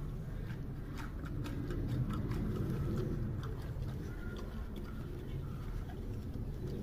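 Giant panda chewing a bamboo shoot, with irregular crisp crunching clicks over a steady low background rumble.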